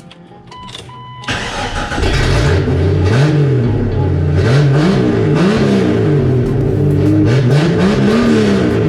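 Jeep Cherokee XJ engine starting about a second in, then revving up and down several times with its exhaust partly removed. It is loud and sounds like a tractor.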